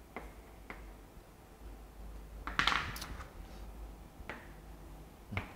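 Chalk on a chalkboard: a few light taps and one louder scratchy stroke about two and a half seconds in, as lines and symbols are drawn.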